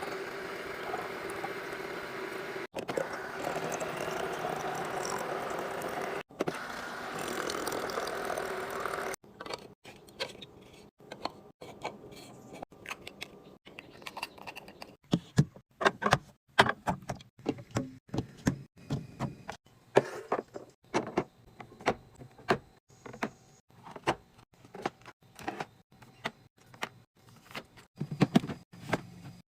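A steady sound for the first nine seconds, then a long run of sharp clicks, knocks and clatter of drink cans, bottles and packaging being handled and set down while a mini fridge is stocked.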